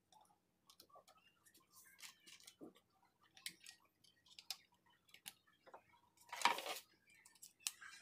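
Scattered small metallic clicks and taps of pump parts being handled and fitted onto a salvaged washing-machine motor, with one louder brief scrape about six and a half seconds in.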